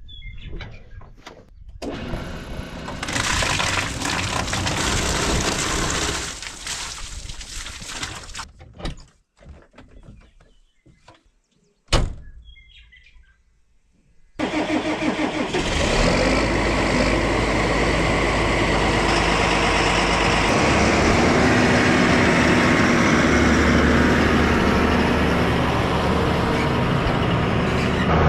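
A single sharp knock, then a farm vehicle's engine starts about fourteen seconds in and runs steadily, its low tone shifting about six seconds later.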